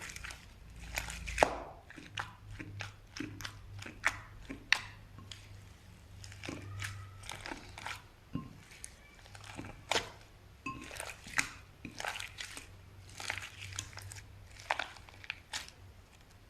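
Slime being worked, giving a stream of irregular crunchy crackles and pops, with the sharpest pop about a second and a half in.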